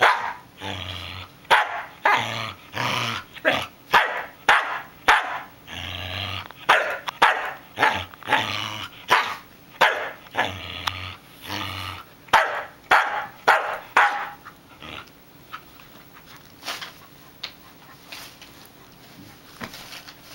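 Samoyed barking at another dog in annoyance, a fast run of sharp barks with growls mixed in, easing off about fourteen seconds in to only a few scattered, quieter barks.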